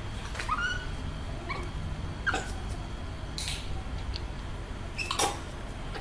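An animal's short, high squeaky cries, several of them, with pitch bending quickly, mixed with a couple of brief breathy or rustling bursts.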